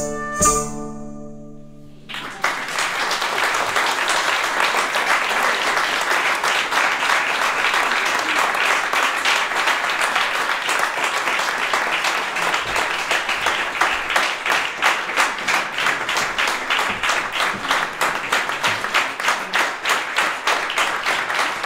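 The last notes of a medieval trio of transverse flute, gothic harp and chifonie (hurdy-gurdy) with its steady drone die away about two seconds in, followed by an audience applauding.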